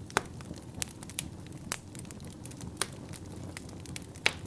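Wood fire crackling in a fireplace: scattered sharp pops and snaps, about one every half second to a second, over a steady low rumble of the flames.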